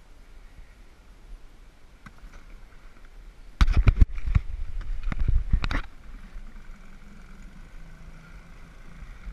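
Small Yamaha outboard motor pull-started: a hard yank on the starter cord about three and a half seconds in, and about two seconds of loud cranking and firing. The engine then settles into a quiet, steady idle.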